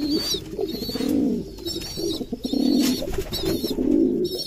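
Homing pigeons cooing: low, rolling coos about once a second, with short, thin, wavering high peeps in between.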